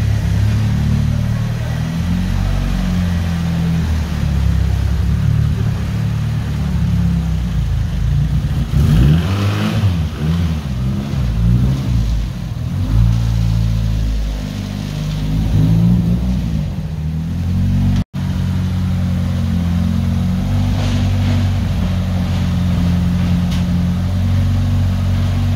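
Nissan Pulsar GTi-R's turbocharged four-cylinder engine idling, with a couple of rev blips in the middle. The sound drops out for an instant near the end.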